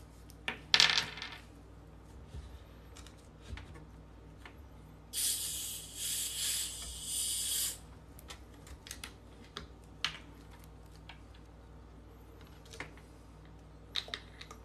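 Carbonated gas hissing out of a 2-litre bottle of Pepsi as the cap is twisted loose, in three close pulses lasting about two and a half seconds, beginning about five seconds in. Around it, a crinkle under a second in and scattered light clicks as the Mentos candies are unwrapped and handled.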